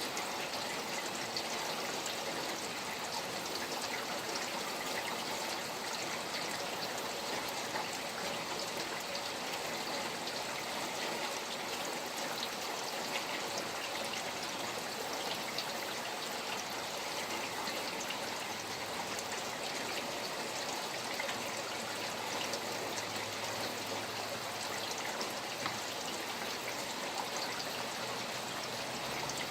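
Steady rain with running water from a stream trickling: an even wash of water sound with many small drop ticks.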